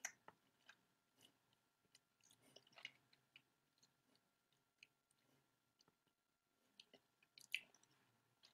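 Faint, irregular wet mouth clicks and smacks from a tablet being dissolved and rolled around on the tongue, with a small cluster about three seconds in and another near the end.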